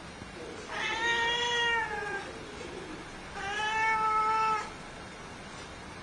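A domestic cat meowing twice: two long, drawn-out meows, each more than a second long, the first sliding down in pitch at its end.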